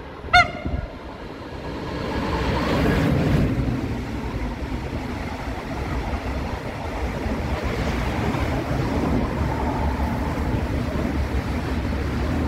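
ICE 4 high-speed electric train approaching and passing beneath at speed: a steady rush of wheel and wind noise that swells about two seconds in and holds. A short, loud horn toot sounds about half a second in.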